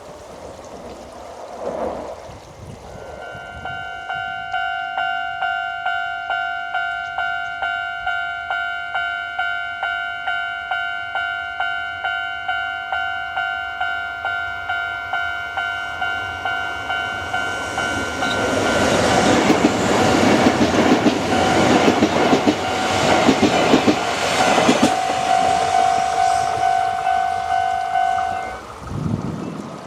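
Japanese level-crossing electronic warning bell ringing in a rapid steady rhythm, about two strokes a second, starting about three seconds in and stopping just before the end. From about eighteen seconds in, a Kintetsu Minami Osaka Line train passes over the crossing, its running noise louder than the bell.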